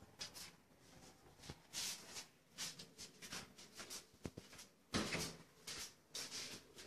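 Scattered faint clicks, rustles and knocks of someone moving past interior doors, with a louder knock about five seconds in.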